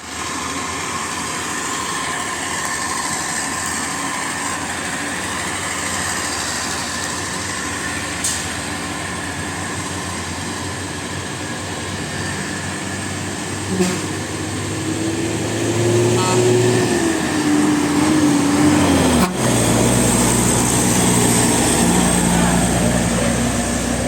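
Road traffic noise with a heavy vehicle's engine going by. Its pitch rises and then falls away about three-quarters of the way through. A deeper low rumble takes over abruptly about 19 seconds in.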